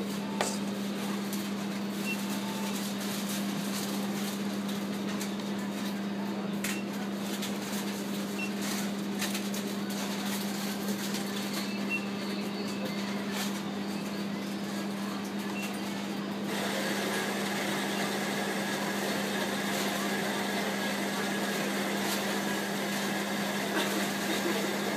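Costa Express bean-to-cup coffee machine starting up about sixteen seconds in, with a steady mechanical running sound as it begins preparing a White Americano, grinding the beans first. Before that, only a steady low hum and a few short touchscreen beeps.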